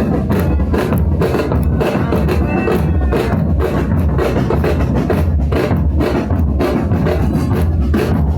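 Drums, bass drum among them, beating a steady rhythm with music.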